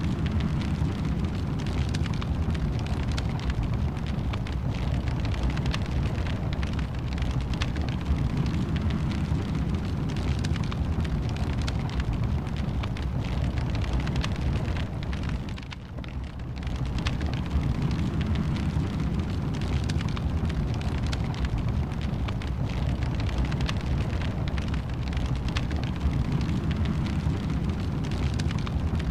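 Wood fire in a fireplace, crackling and popping over a steady low rumble of flames, dipping briefly about halfway through.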